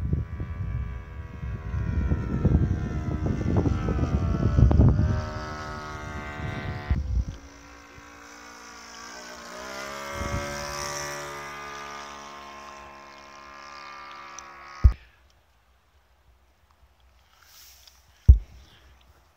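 Saito FG-21 four-stroke petrol engine of a Tiger 60 model airplane in flight, a steady engine note with wind buffeting the microphone for the first several seconds. Its pitch falls as the plane passes close, about eight to ten seconds in. The engine sound cuts off about fifteen seconds in, followed by two short knocks.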